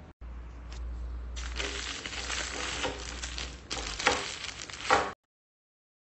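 Crackling, rustling handling noise with two sharp knocks near the end, cut off abruptly about five seconds in.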